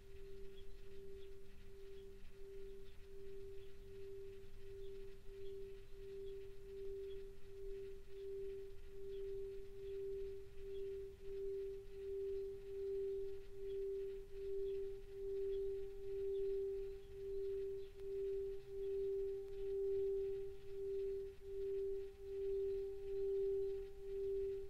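Tibetan singing bowl sung by circling a mallet around its rim: one steady ringing tone that pulses with each turn of the mallet and grows louder, with a fainter higher tone joining about halfway through.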